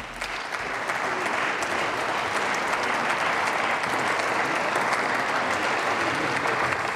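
Applause from many people in a parliamentary chamber: dense clapping that builds within the first half-second, then holds steady.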